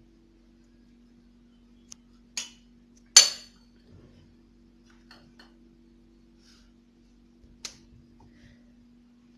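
Kitchenware clinking: a handful of short sharp knocks of spoon, pot or glass containers while ingredients are added to a soup pot, the loudest a little over three seconds in. A steady faint low hum runs underneath.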